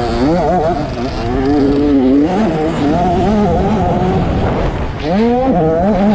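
65cc two-stroke motocross bike engine revving hard under racing load. Its pitch keeps climbing and dropping with throttle and gear changes, with a sharp climb about five seconds in.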